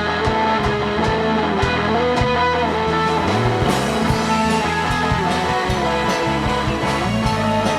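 Rock band playing an instrumental passage, electric guitar to the fore over bass and drums with regular drum hits, taken straight from the mixing desk.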